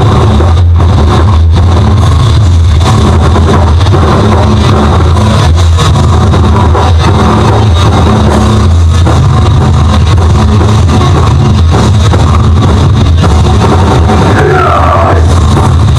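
Live rock band playing loudly through a PA: distorted electric guitars, bass and drums, with a pitch bend on a guitar or voice near the end.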